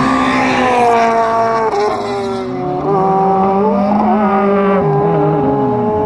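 Honda Civic Type-R rally car's 2.0-litre four-cylinder engine running hard at high revs as the car passes at speed; the engine note drops and climbs again several times, falling around two seconds in, rising near four seconds and dropping again shortly after.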